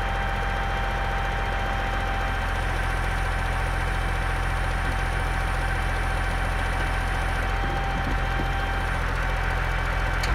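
John Deere 544G wheel loader's diesel engine idling steadily: a constant low rumble with a steady high whine over it.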